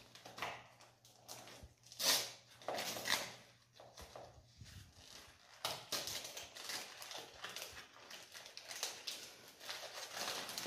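Gift wrapping being unwrapped by hand: irregular rustling and crinkling of paper and ribbon, the loudest rustles about two and three seconds in.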